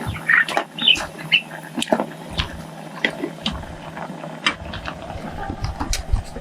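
Irregular light clicks, knocks and short squeaks of a utensil working against a metal cooking pot, over a steady low hum.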